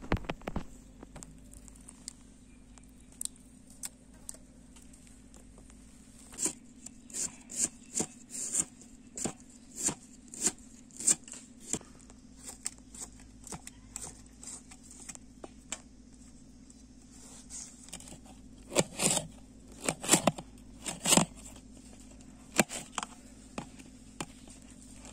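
Kitchen knife slicing tomatoes and green chillies over a steel plate: irregular clicks and scrapes as the blade cuts through and meets the metal, with a quick run of louder strokes about three quarters of the way through.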